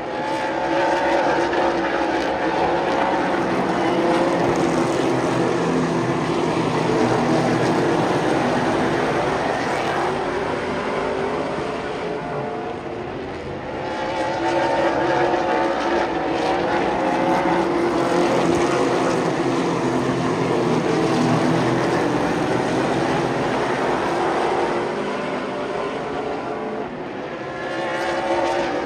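A field of Super Late Model stock cars racing on a short oval track, their V8 engines running hard. The sound swells as the pack comes past and dips as it goes round the far side, twice, about 13 seconds apart.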